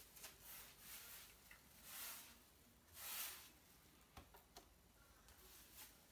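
Faint swishes of a wide paint brush stroking silver-effect decorative paint across a plastered wall, in separate strokes, with a couple of light knocks about four seconds in.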